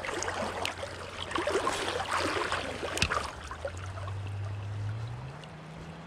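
Creek water rushing and babbling around a wading angler, with scattered light clicks from a spinning reel being cranked through a retrieve. A low hum runs underneath and steps up in pitch near the end.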